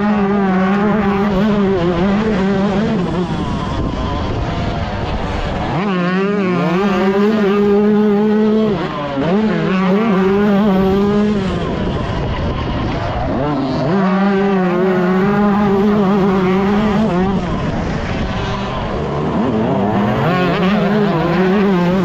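Yamaha YZ125 two-stroke motocross engine at race pace, revving hard and climbing in pitch, easing off and winding up again several times as the rider works the throttle.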